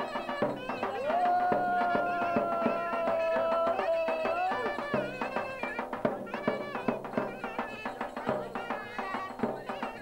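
Turkish folk dance music with a davul drum beating steadily under a melody instrument. The melody holds one long note for about three seconds, then moves into quick, ornamented runs.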